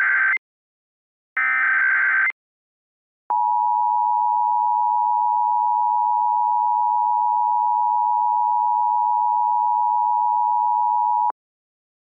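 Emergency Alert System tones: the end of one burst and then a full burst of the SAME digital header, short warbling data bursts about a second long, then after a short gap the EAS two-tone attention signal held steady for about eight seconds before cutting off, marking the start of a new emergency alert.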